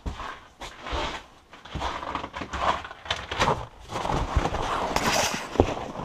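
Footsteps and clothing rustle as someone walks out through a shed door into snow, with irregular crunching and a sharp knock about five and a half seconds in.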